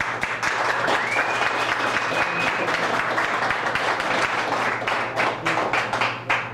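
Audience applauding: dense, steady clapping from a room full of people, with a thin high tone held for a second or two about a second in.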